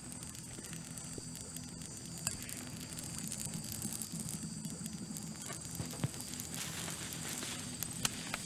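Open fire burning with a steady crackle and a few sharp pops.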